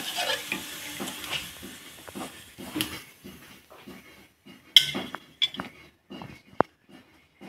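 A steel spatula stirring in a pan of water, fading out, then several sharp clinks and scrapes of the spatula against a steel plate as fried peanuts, onion and peas are scooped up.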